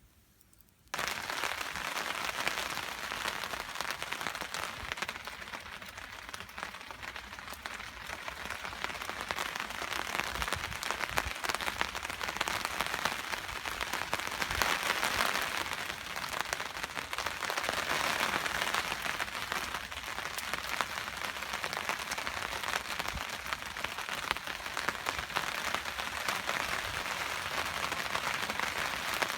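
Steady rain falling, a dense patter of drops that starts abruptly about a second in.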